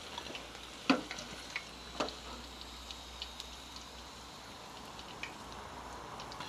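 Chicken 65 pieces deep-frying in hot oil: a steady sizzle with scattered small crackles, and two louder sharp clicks about one and two seconds in.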